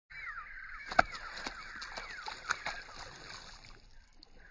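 Birds calling in a run of repeated falling notes, with a few sharp knocks cutting through, the loudest about a second in.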